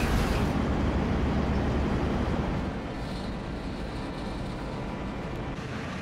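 Steady low machinery rumble with a faint hum, which drops somewhat in level about three seconds in.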